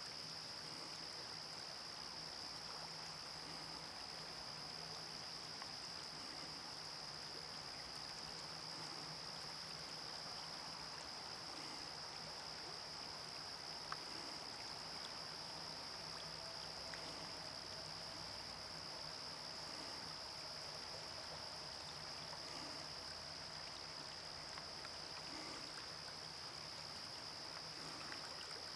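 River water running over rocks in a shallow riffle, a steady, even rush, with a constant high-pitched tone above it.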